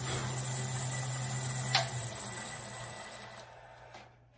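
Drill press running with a steady hum and a high whine, then a sharp click a little under two seconds in. The motor winds down and stops before the end.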